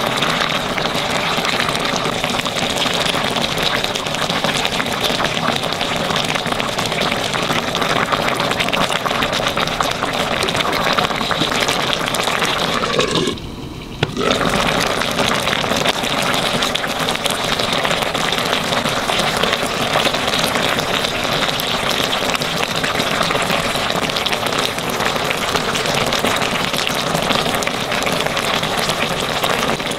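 Radish braise (mu-jorim) bubbling hard in a pot of spicy soy-and-chilli sauce: a steady bubbling sizzle as the sauce simmers down and reduces. The sound drops out briefly about halfway through.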